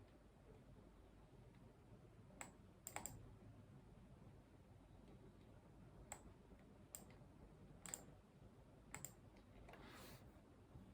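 Sparse, quiet clicks of a computer mouse and keyboard at a desk: single clicks a second or so apart, twice in quick pairs, with a brief soft rustle near the end.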